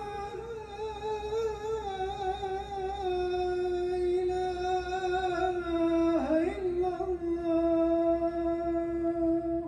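A man chanting the adhan, the Islamic call to prayer, into a microphone. The long drawn-out phrases waver and turn around one held note, with a short dip and break about six seconds in, then a long steady held note.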